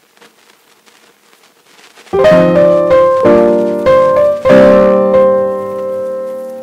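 Intro music on piano: after about two seconds of near quiet, a few chords are struck one after another, the last one held and fading.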